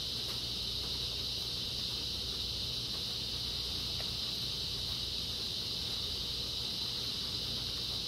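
Steady high-pitched hiss with a low hum beneath; a faint click about four seconds in.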